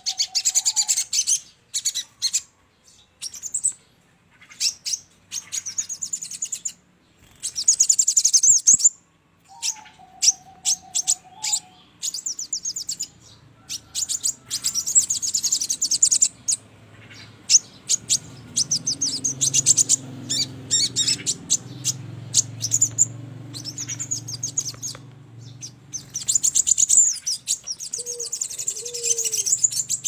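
Sogon birds singing: repeated short bouts of very fast, high chattering trills with brief pauses between them. A lower whistled call comes about ten seconds in, and a low hum runs through the middle.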